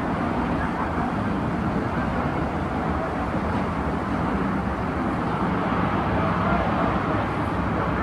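Steady rumble of road traffic and general city noise, with no single event standing out.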